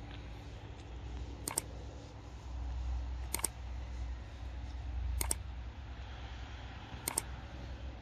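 Four sharp double clicks, evenly spaced about two seconds apart, over a steady low rumble.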